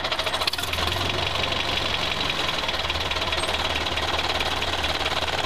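Tractor engine sound running steadily at a fast, even chugging idle.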